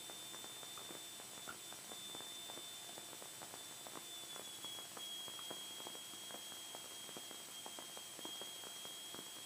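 Faint steady high-pitched electrical whine over hiss, with scattered soft ticks, on the cockpit audio line. No engine can be heard. The whine dips slightly in pitch about halfway through.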